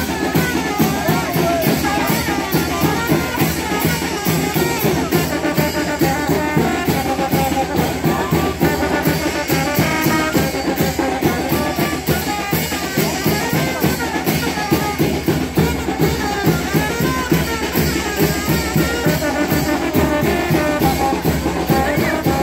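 Live brass band with drums playing a dance tune, the drums keeping a steady beat under the brass melody.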